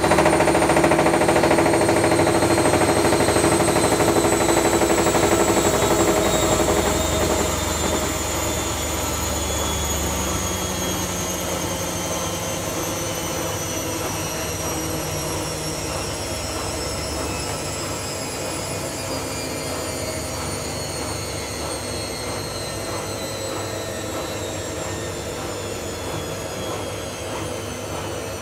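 Front-loading washing machine on its 800 rpm spin cycle, the motor's whine falling steadily in pitch and the sound slowly fading as the drum slows down.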